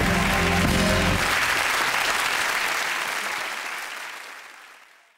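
Audience applauding and cheering over the last bars of closing music; the music stops about a second in and the applause fades away near the end.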